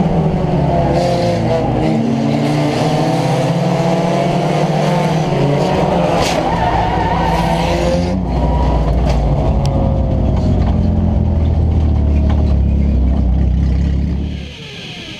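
Compact race car engine running hard, heard from inside the car, with tyre noise from the corners. About six seconds in there is a single sharp crack. From about eight seconds the engine settles to a deeper, lower note as the car slows, and near the end it drops away much quieter.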